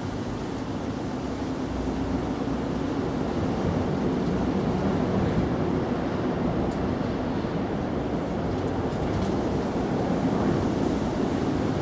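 Washing machine running: a steady rushing noise with no clear rhythm.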